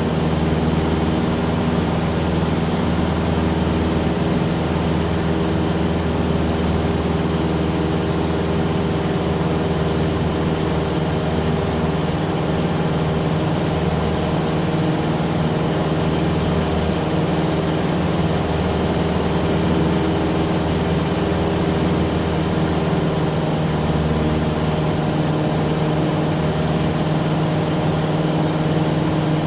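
Cessna 177's piston engine and propeller running steadily, a constant low drone with no change in pitch.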